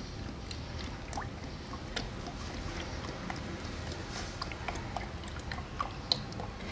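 Automatic transmission fluid pouring from a plastic quart bottle into a plastic measuring cup, a steady pour broken by small glugs and plinks.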